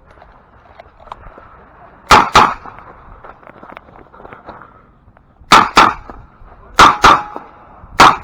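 Revolver shots fired in quick pairs, the two shots of each pair about a quarter second apart: a pair about two seconds in, two more pairs in quick succession after a pause of about three seconds, and a single shot at the very end.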